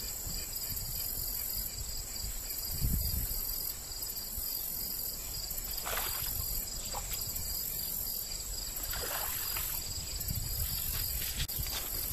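Crickets chirring steadily in a high, pulsing drone, with a hooked bluegill splashing at the pond's surface several times from about six seconds in.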